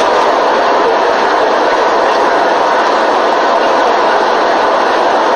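Steady roar of an airliner cabin in flight: engine and air noise from inside the plane, even and unbroken.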